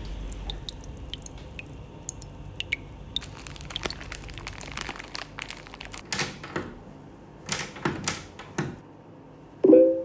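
A sheet of paper being crumpled in a hand: scattered crackles, with louder bursts of crinkling about six seconds in and again a little later. A brief pitched tone sounds just before the end and is the loudest thing heard.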